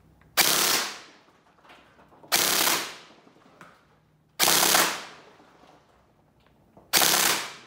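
DSG gel blaster firing four short full-auto bursts, each about half a second long, roughly two seconds apart. The owner suspects the blaster is misfiring.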